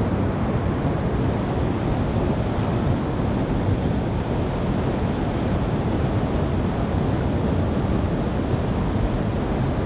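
Small rocky stream rushing over short cascades into a pool: a steady, unbroken rush of water.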